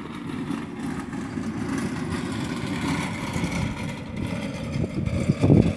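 A car driving past, its engine and road noise as a steady low rumble that swells around the middle. A loud low bump near the end.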